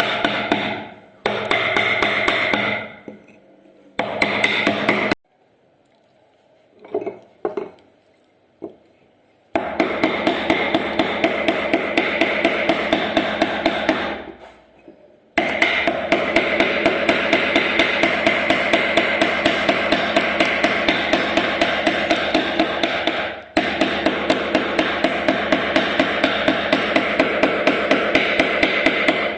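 Mallet or hammer tapping a carving chisel into a wooden door panel in fast, even strokes, about three to four a second, each with a metallic ring. The tapping comes in several stretches broken by sudden stops, with a quiet gap near a third of the way in that holds only a few soft knocks.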